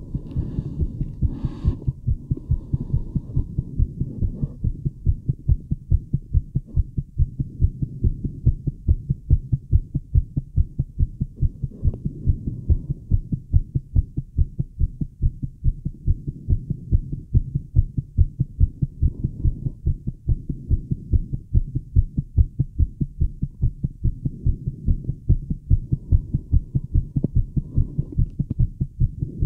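A woman's fast, regular heartbeat heard through a Littmann stethoscope on her chest, recorded by a microphone fitted to the stethoscope, with a steady low hum underneath. There is a brief scrape near the start.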